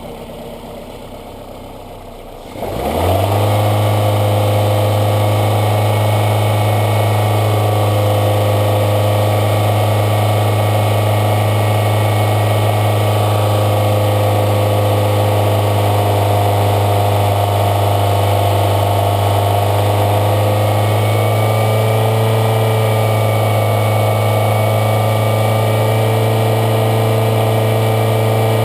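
2003 Toyota Corolla's 1.8-litre four-cylinder engine running while SeaFoam is fed into its throttle body. It is quieter at first; about two and a half seconds in it picks up speed with a quick rising note, then runs steadily at the raised speed.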